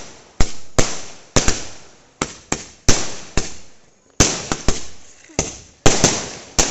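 A 240-shot aerial firework cake firing in rapid succession. Its shells burst as sharp bangs about two a second, each trailing off briefly, with a short lull about two-thirds of the way through.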